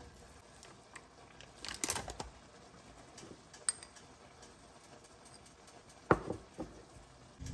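A metal fork scraping thick soybean paste out of a plastic tub, with soft scrapes and clicks. About six seconds in comes a sharp clink of the fork against a porcelain bowl, the loudest sound, followed by two lighter taps.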